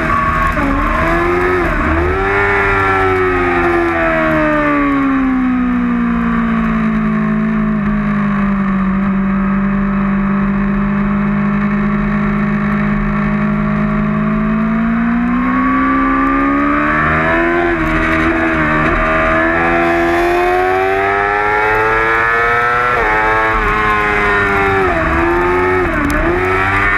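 2008 Yamaha R6's inline-four engine under racing load. The note drops in quick steps early on, sinks to a low steady pitch through the middle, then climbs again with a series of quick gear changes in the second half.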